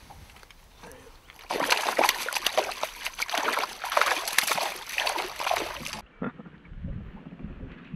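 A trout thrashing in a landing net at the water's surface beside the boat, throwing up a rush of irregular splashes that starts about a second and a half in and stops about six seconds in.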